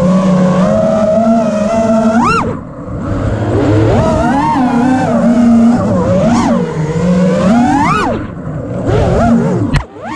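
Brushless motors and props of a 5-inch FPV freestyle quadcopter (T-Motor F60 Pro IV 1750kv motors, HQProp Ethix S3 props), heard from its onboard camera: a whine whose pitch swings up and down with the throttle. Several sharp rising sweeps come as the throttle is punched, and the level drops briefly where the throttle is cut.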